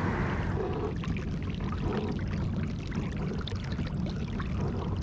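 Water trickling and splashing along the hull of a moving kayak, a steady crackling wash.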